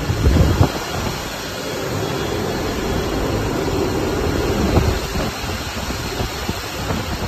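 Many cooling fans of rack-mounted Bitcoin ASIC mining machines running together, a loud steady rush of noise. A few thumps come near the start.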